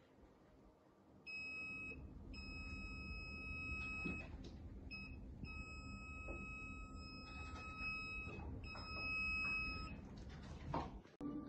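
K19+ bug detector sounding its alarm: a steady high beep with a few brief breaks, starting about a second in and stopping near the end. The tone marks the detector picking up a wireless signal, shown on its signal-strength meter. Soft handling clicks and a low rumble lie underneath.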